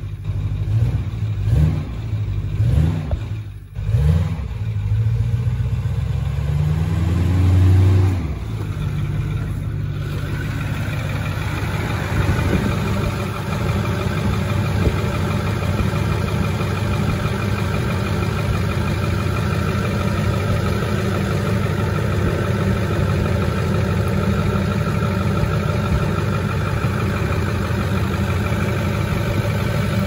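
Ford 6.4 L Power Stroke V8 turbodiesel running: revved briefly several times in the first few seconds and once more, longer, around six to eight seconds in, then settling into a steady idle. It is being kept running to purge air from the fuel system after a fuel pump replacement.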